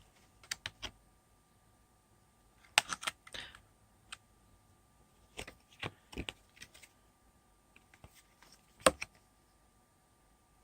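Scattered light clicks, taps and rustles of card and paper items being handled and laid down. There is a cluster about three seconds in, several more around six seconds, and a sharper tap near the end.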